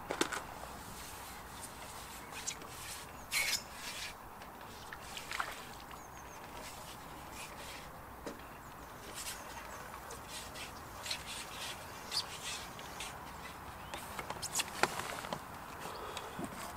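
Outdoor ambience: a steady low hiss with scattered short clicks and a few brief high chirps.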